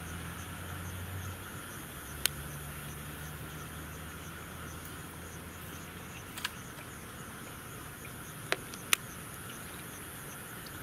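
Night insects chirping steadily in a continuous chorus. A few sharp clicks sound over it: one about two seconds in, a fainter one past six seconds, and two close together near the end.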